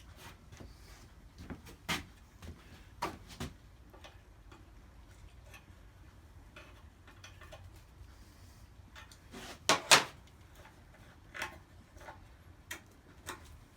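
Scattered clicks and knocks of metal and tools being handled while a bent part on a small edger engine is straightened, with a pair of louder knocks about ten seconds in.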